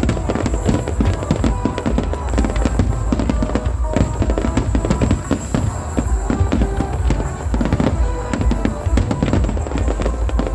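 Fireworks display at full intensity: aerial shells bursting and many rising comets, heard as a dense, unbroken run of bangs and crackles over a deep rumble, with music playing underneath.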